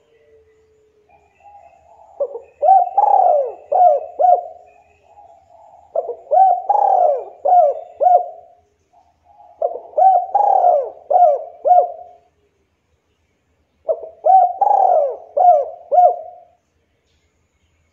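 A local Javanese spotted dove cooing: a few soft notes, then four loud phrases of several coos each, roughly every four seconds.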